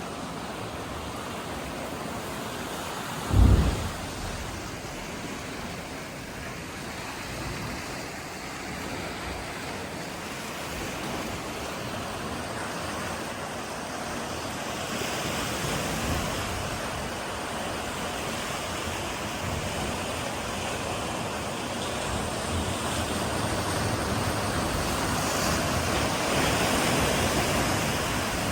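Sea waves surging into a sea cave: steady rushing surf that builds in the second half, with a deep boom about three and a half seconds in as a wave slams into the cave, and another right at the end.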